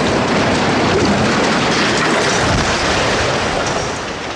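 Structural steel water tower collapsing after explosive felling: a loud, continuous rumbling crash of steel and debris hitting the ground, starting to fade near the end.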